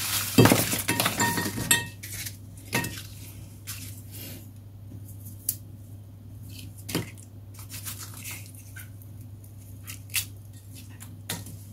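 Crisp fried namak pare tipped from a wire mesh strainer into a cut-glass dish, rattling and clinking against the glass for about the first two seconds, then a few separate light clinks and taps as pieces are handled. A low steady hum runs underneath.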